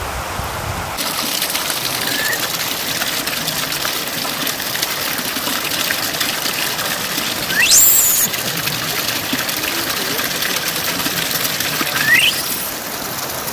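Steady rush of flowing water, with two short rising squeaky calls over it: a loud one a little past the middle and a fainter one near the end.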